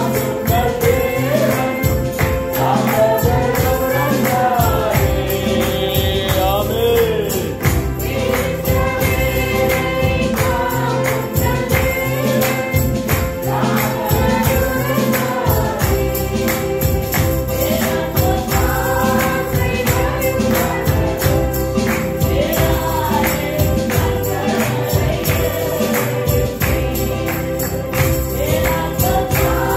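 Voices singing a Tamil Christian worship song in unison, over a sustained accompanying note and a steady percussion beat.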